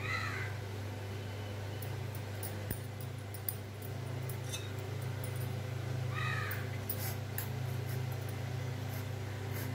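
A steel spoon clinking and scraping in steel bowls while grated coconut is mixed into steamed ragi flour, over a steady low hum. An animal call, a short cry in a few pitched notes, comes once at the start and again about six seconds in.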